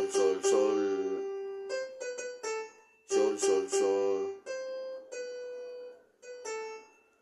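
Piano playing a slow melody one note at a time, some notes repeated, each ringing and fading before the next.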